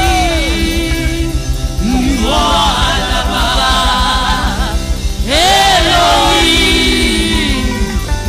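Live gospel praise music: women singing worship lines into microphones over a band, with a steady drum beat underneath. The voices come in two long sung phrases, the second starting about five seconds in.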